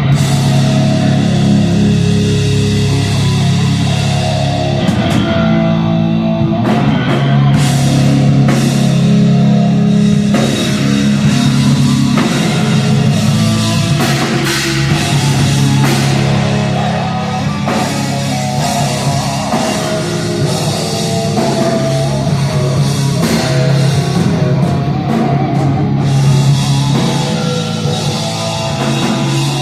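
Live heavy rock band playing an instrumental passage: distorted electric guitars over bass and a drum kit.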